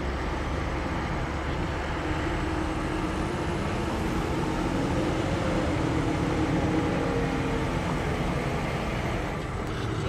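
Heavy diesel earthmoving equipment running steadily at a dirt construction site. The engine sound swells a little around the middle.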